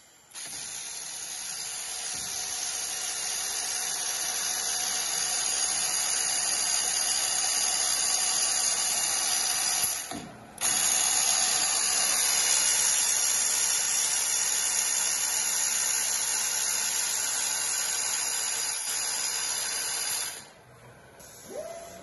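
CNC router spindle cutting a wood-composite sheet: a loud, steady, high-pitched whir of the cutter in the board, swelling over the first few seconds. It breaks off briefly about ten seconds in, then carries on until it stops near the end.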